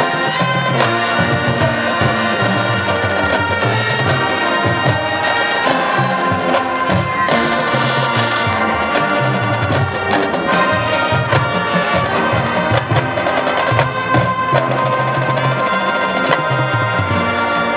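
High school marching band playing a brass-led tune, trumpets and trombones over marching percussion.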